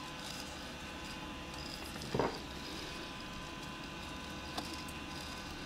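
One short sip from a small espresso cup about two seconds in, over a steady low hum, with a faint tick near the end.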